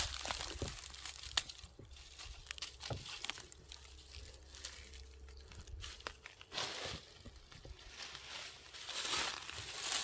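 Footsteps moving through dry leaves and undergrowth: irregular rustling and crunching with scattered sharp crackles, louder swishes around two-thirds of the way in and near the end.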